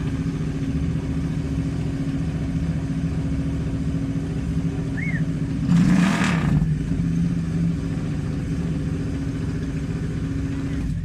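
Custom hardtail motorcycle built from a Royal Enfield Interceptor 650, its parallel-twin engine idling steadily through a custom exhaust, with one brief rev of the throttle about six seconds in.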